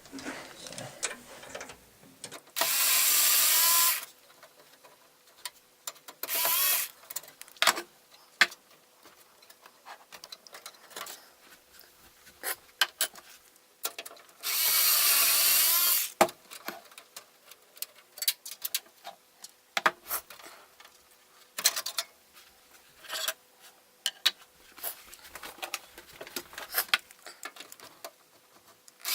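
Electric screwdriver whirring in two runs of about a second and a half and one short burst, undoing the screws that hold PCI expansion cards in a desktop computer case. Between the runs, small clicks and metallic knocks of screws, cards and brackets being handled.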